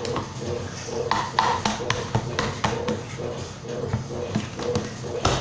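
A spoon clicking and tapping irregularly against a bowl as slime is stirred.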